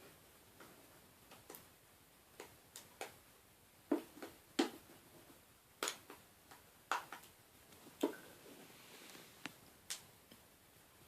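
Irregular small clicks and taps, about a dozen, the loudest in the middle: an iPhone 5 front panel being handled and pressed into its frame.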